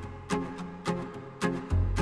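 Background music with a steady beat, about two strokes a second, over a deep bass note.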